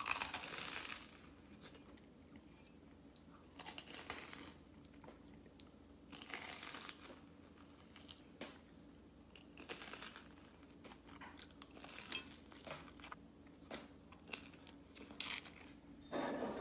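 Crunching bites and chewing of a crisp battered corn dog, in bursts of about a second every few seconds, with small clicks between.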